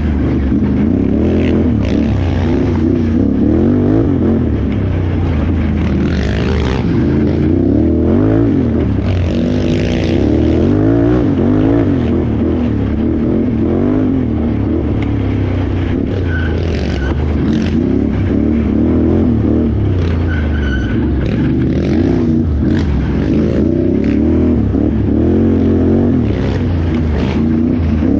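Can-Am Renegade XXC 1000R ATV's V-twin engine running hard, its pitch constantly rising and falling as the throttle is worked over rough ground. Occasional clattering knocks are heard over it.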